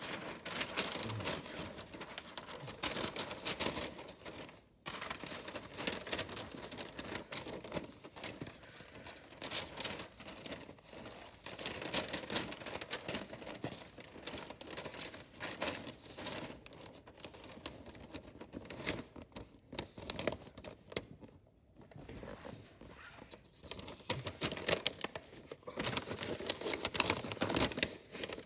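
Christmas wrapping paper crinkling and rustling as it is folded around a cardboard box, in irregular crackles with a couple of short pauses.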